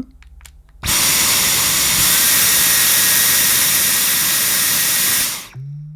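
Dyson Micro cordless vacuum switched on at its maximum setting, running with a loud steady rush and a high whine for about four and a half seconds while its inlet is held against a suction gauge, then switched off and running down. On maximum it reads about 48 on the gauge.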